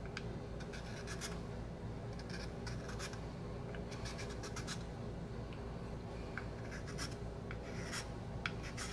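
Small hand file scraping on a briar tobacco pipe in short, irregular strokes: the last pass of filing to smooth out ridges.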